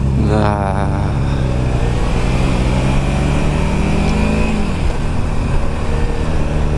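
Kawasaki Ninja 300's parallel-twin engine running under way, its revs climbing about half a second in and then holding steady, with wind noise on the helmet microphone.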